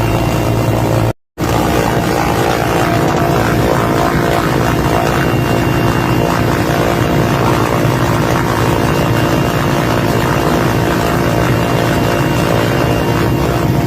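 Helicopter flying overhead, its rotor and engine running steadily; the sound cuts out for a moment about a second in.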